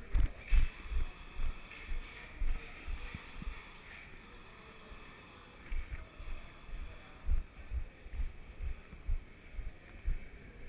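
Footsteps of the camera wearer walking along a cell-block walkway, heard as dull low thumps about two a second, pausing briefly in the middle.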